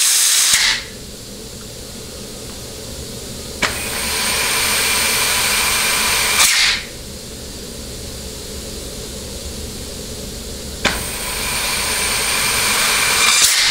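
Compressed air hissing from a blow gun held to the forward clutch feed hole of a Ford C6 transmission pump, air-applying the forward clutch so its clearance can be read on a dial indicator. A short blast at the start, then two longer blasts of about three seconds each, around four and eleven seconds in.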